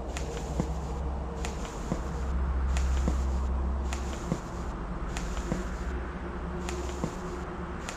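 Eerie ambient drone: a deep low rumble that swells and peaks around the middle, faint held hum tones above it, and sharp clicks about once a second.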